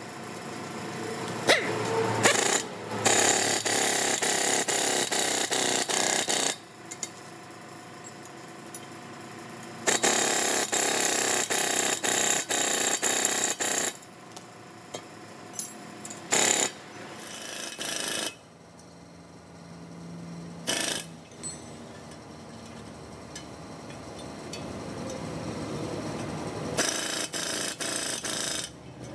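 A power tool run in three bursts of a few seconds each, with sharp metal knocks and clinks between the bursts, during work on a torque rod bushing.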